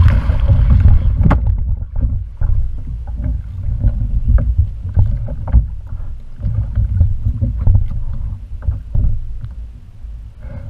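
Wind buffeting the microphone on a kayak at sea, with water slapping against the hull. A burst of spray splashes about the start, and small knocks and clicks of gear being handled are scattered throughout.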